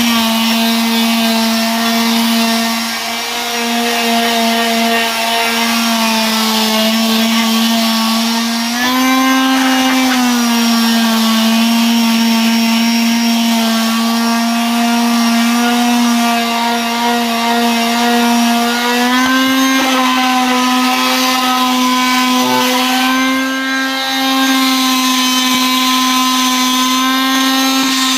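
Electric sander running continuously, a steady motor whine with many overtones. Its pitch rises briefly about nine seconds in, and rises again near twenty seconds, where it stays slightly higher.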